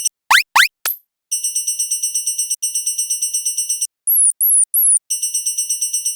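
Cartoon railroad-crossing warning bell: a high electronic ding repeated rapidly and evenly, in three runs. Two quick rising whoop effects sound near the start, and three falling chirps break the ringing about two-thirds of the way through.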